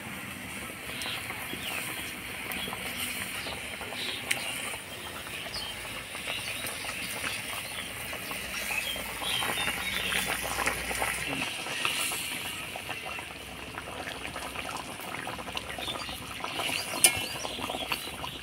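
Mustard gravy for hilsa curry bubbling at the boil in a pan, a steady hiss and patter, with a few sharp clicks, the loudest near the end.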